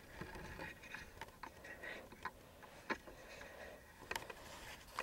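Faint outdoor ambience over an open field, with a scattering of short light clicks at irregular intervals.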